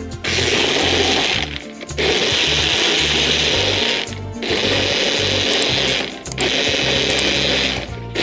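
Personal bullet-style blender running in four pulses of about two seconds each, with short breaks between them, puréeing apple pieces and greens in water into a pulp.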